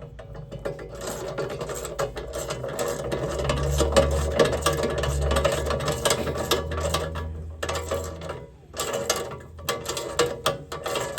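Socket ratchet wrench clicking rapidly as bolts are turned, with a short pause about eight seconds in.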